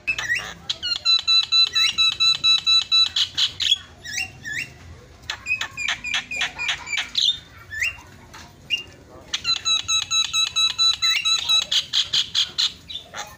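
Javan myna (jalak kebo) singing: three runs of rapid, harsh repeated notes, about seven a second, broken by short rising whistles.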